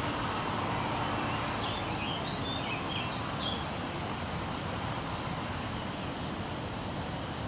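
Steady outdoor background hiss, with a bird chirping a quick run of short, high notes about two seconds in.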